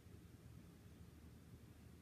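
Near silence: a faint steady low hum of room tone.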